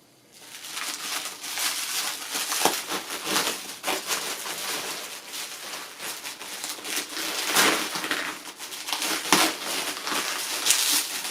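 Packing material being crumpled and torn open by hand: a continuous crackling rustle with many sharp crunches.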